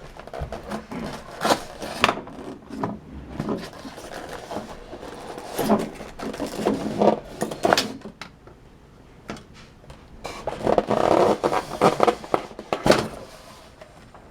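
Styrofoam packing and a plastic toy truck scraping, rubbing and knocking as they are worked out of a cardboard box: an irregular run of scrapes and clunks, busiest near the end.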